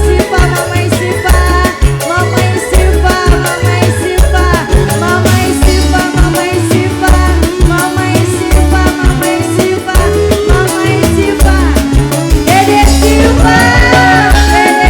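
Live dangdut band music with a steady bass beat, fast rattling percussion and a held melody line, and sliding melody notes near the end. No clear singing.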